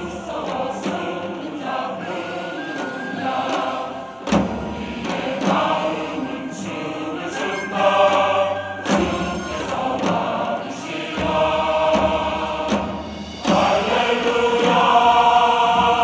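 A choir singing in several voices, the sound changing abruptly a few times between sung passages.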